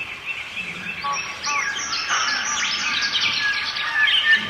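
Many small birds chirping and twittering in a dense, overlapping chorus of quick high notes and short glides, growing busier from about a second and a half in.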